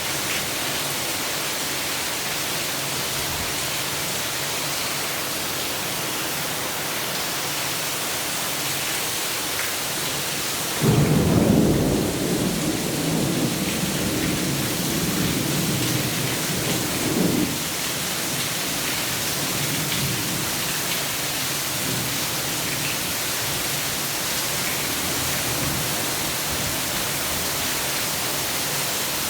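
Thunderstorm: steady heavy rain with a long low roll of thunder that breaks in suddenly about a third of the way through and rumbles on for several seconds before fading back under the rain.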